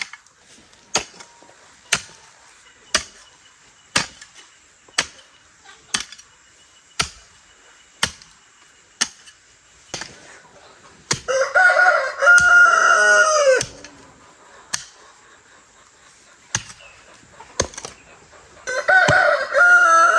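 A rooster crowing twice, each crow about two and a half seconds long, the second near the end. For the first half, sharp knocks come steadily about once a second, with a few scattered ones later.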